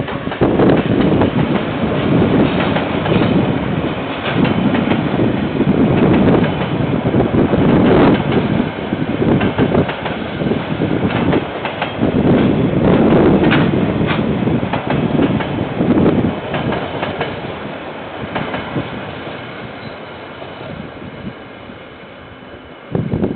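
KiwiRail diesel-hauled freight train of container wagons passing, with a continuous rumble of wheels on rail and repeated clicks of wheels over the rail joints. The noise fades steadily over the last several seconds as the end of the train goes by.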